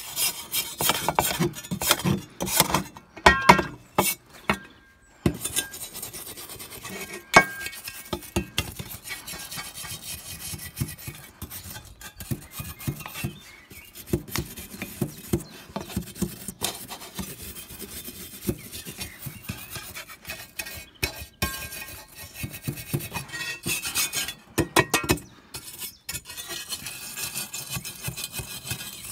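Twisted-wire steel brush scrubbing the steel blade of a 1945 US military folding spade clean, in rapid, irregular scraping strokes with a few sharper knocks.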